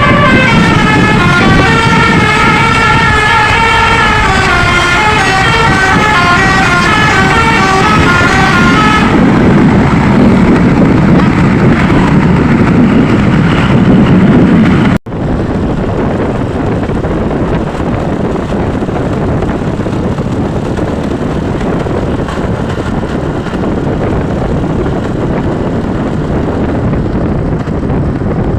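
A bus's telolet basuri musical air horn playing a stepped multi-note tune for about nine seconds. After that comes a steady noisy vehicle rumble with no horn. The sound drops out for an instant about fifteen seconds in and then continues a little quieter.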